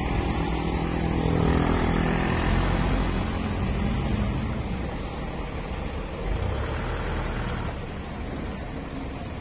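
Mitsubishi Canter truck's diesel engine running as the truck moves off slowly, the sound fading gradually.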